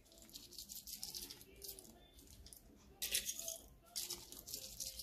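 Mixed seeds being shaken out of a container onto a fruit and chickpea salad, rattling faintly, with two sharper bursts about three and four seconds in.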